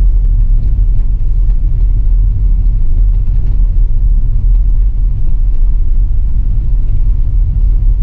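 Steady low rumble of a car driving along a street, with engine and tyre noise heard from inside the cabin.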